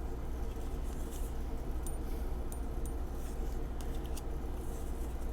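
Tarot cards being handled: faint soft slides and a few light ticks as cards are moved and set down, over a steady low hum.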